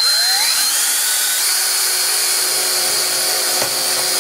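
An 18-volt drill starting up, its whine rising in pitch over the first half second, then running steadily at full speed as the bit is pressed into the middle of an iPhone 6's screen.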